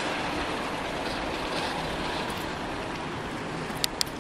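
Steady rushing noise of riding a bicycle: wind over the microphone and tyres on the road. Two sharp clicks come close together near the end.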